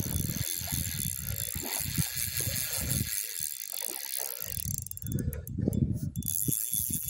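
Tsurinoya Jaguar 2000 spinning reel being cranked to retrieve a hooked pike, the turning handle and rotor rattling, with irregular low thumps of handling noise.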